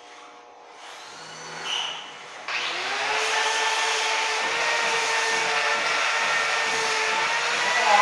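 Handheld angle grinder with a buffing pad, switched on about two and a half seconds in, spinning up and then running steadily with a whine as it buffs a stainless steel frame. Before it starts, soft rubbing and handling sounds.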